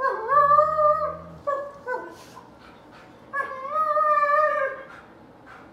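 An Alaskan Malamute and a German Shepherd vocalizing at each other in rough play: two long, wavering howl-like whines of about a second each, one at the start and one about three and a half seconds in, with short yips between them. A low growl sits under the first whine.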